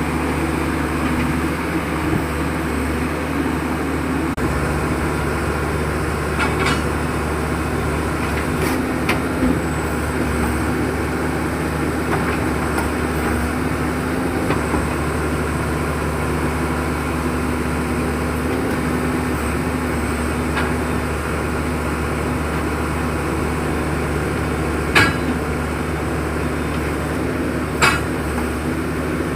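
A horizontal directional drilling rig's diesel engine running steadily, with a few sharp metallic knocks, the two loudest near the end.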